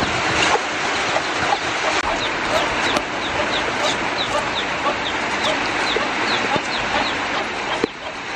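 Chickens clucking and chicks peeping, many short falling cheeps in quick succession over a steady hiss.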